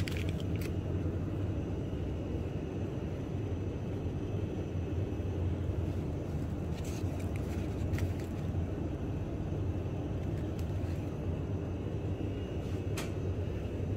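Steady low rumble of supermarket background noise, with a few faint clicks scattered through it.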